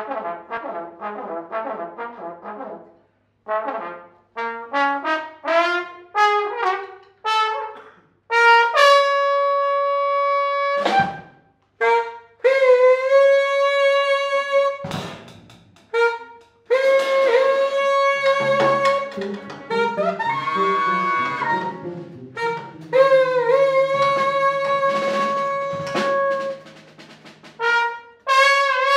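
Jazz horn section of trombone and saxophone playing the melody together: short clipped phrases separated by brief pauses, then long held notes. A walking bass line comes in underneath about halfway through.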